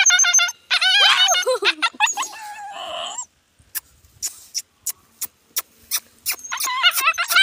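Injured puppy crying in distress: high, wavering yelps and whines, the last one falling in pitch about two seconds in. Then a run of short sharp clicks, and another wavering cry near the end.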